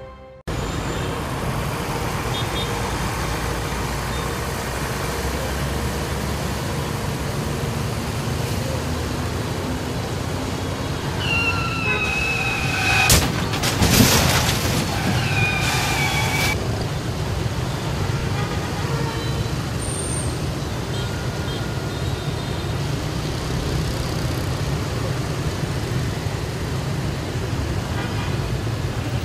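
Steady traffic noise from a busy intersection crowded with motorbikes and cars. Horns sound a few times near the middle, along with a couple of sharp loud bangs.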